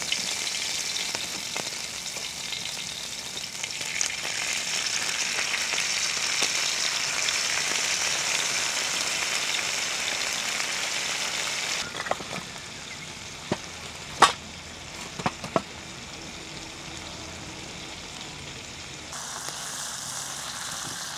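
Pork belly sizzling on a griddle pan over a wood fire, a steady high hiss of frying fat. About twelve seconds in the sizzle drops suddenly to a quieter level, with a few sharp clicks, and it grows louder again near the end.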